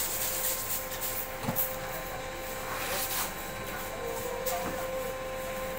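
A steady machine hum fills the plywood factory, with intermittent short scratches and clicks as thin wood veneer strips are handled and laid on plywood sheets.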